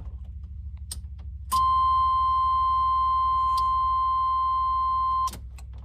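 A steady, high electronic beep at one pitch, starting about a second and a half in, holding for nearly four seconds and cutting off sharply, over a low steady hum.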